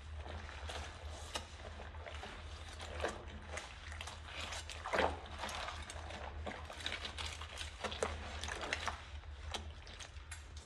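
Dishwashing by hand in a sink of soapy water: kitchen knives scrubbed with a sponge, with sloshing water and scattered clicks and scrapes of the blades, the loudest about five seconds in. A steady low hum runs underneath.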